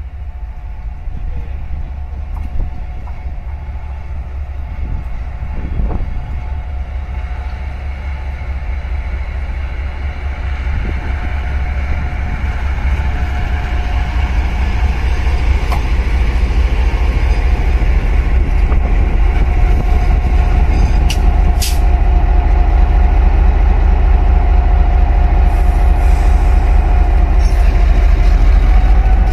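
Diesel-electric locomotive R22 approaching and rolling slowly past, its engine rumble growing steadily louder as it nears, with a steady whine that strengthens in the second half. A short hiss sounds about three-quarters of the way through.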